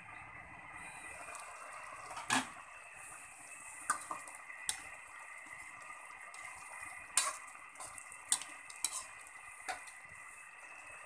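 A metal ladle stirs a simmering pan of tuna adobo in coconut milk, clinking sharply against the metal pan several times over a steady hiss from the simmering pot.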